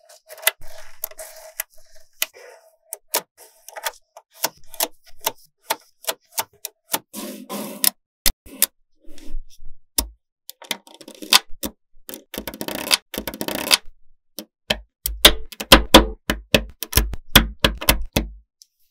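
Small magnet balls clicking and snapping together as rows and layers are pressed into place by hand: a quick, irregular run of sharp clicks, denser and heavier in the second half.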